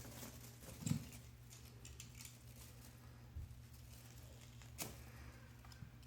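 Faint taps and scuffles of a marble Bengal kitten playing, with a soft thump about a second in and a couple of sharp clicks near the end, over a low steady hum.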